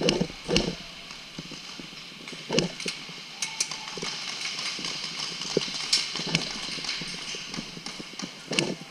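Irregular sharp clicks and knocks from an indoor airsoft match, spaced unevenly over a steady high hiss.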